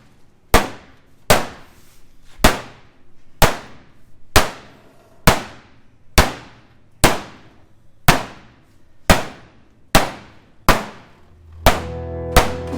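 Heavy hammer blows on a demolition derby car's metal, about one a second, each with a short ring. Music comes in near the end.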